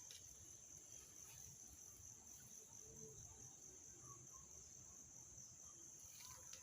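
Near silence with a faint, steady, high-pitched chorus of insects.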